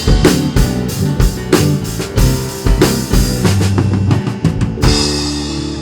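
Live band music with a drum kit beating steadily and held bass and keyboard notes; a little before the end the drumming stops with a cymbal crash and the last chord rings on, fading.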